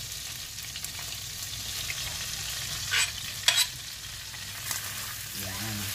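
Minced garlic sizzling in hot butter and oil in a stainless steel pan as it is stirred, with two sharp scrapes of the metal utensil against the pan about three seconds in.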